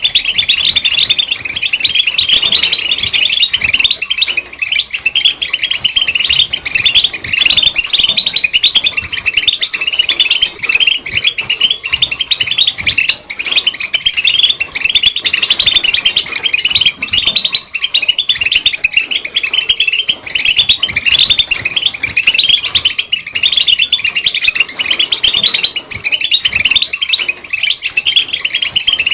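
European goldfinch singing: a fast, continuous run of twittering chirps and trills, high-pitched and loud, with no pauses.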